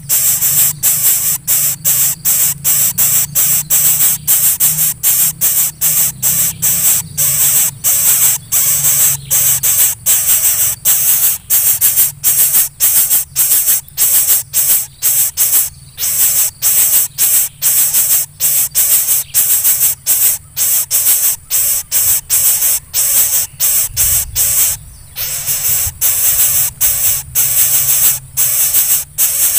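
Greater coucal nestling begging with a rapid run of hissing calls, about two or three a second, over a faint low hum.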